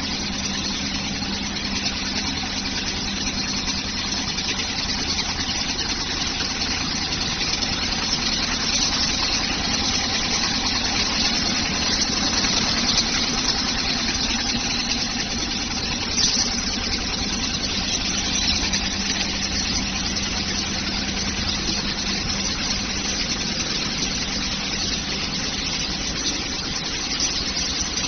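Industrial quilting machine for coats running steadily: a continuous mechanical hum with an even hiss above it.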